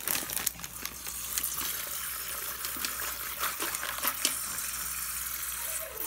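Tap water running steadily into a bathroom sink, splashing over plastic bags of glass aquarium gems, with a few light clicks over the flow.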